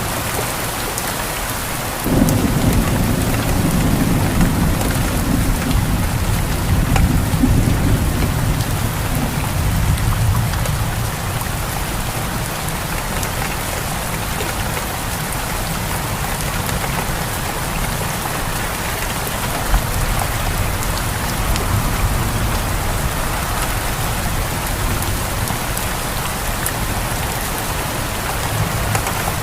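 Steady rain falling, with a rolling rumble of thunder that breaks in suddenly about two seconds in and dies away over the next ten seconds. Fainter rumbles come again later.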